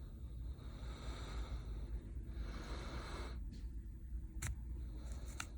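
Plastic opening card being worked in under a phone's heated back glass: faint scraping and handling noise over a steady low hum, with a couple of small sharp clicks near the end.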